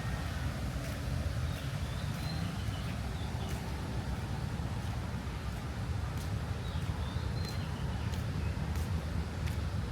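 Outdoor park ambience: a steady low rumble with a few short, high bird chirps, about two seconds in and again near seven and a half seconds, and scattered light ticks.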